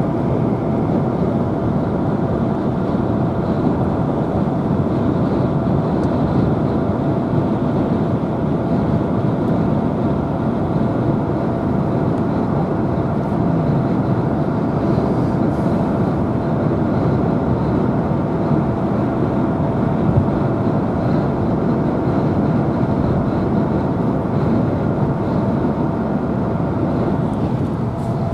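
Steady road noise inside a car's cabin at highway speed: tyre and engine drone with a faint steady whine running through it.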